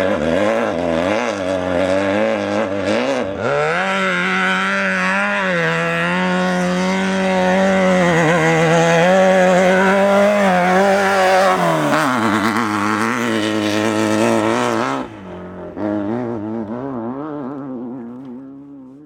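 Class 12 desert race buggy's engine revving up about three seconds in and running hard at high revs, easing off partway through. Near the end the sound turns muffled and fades away.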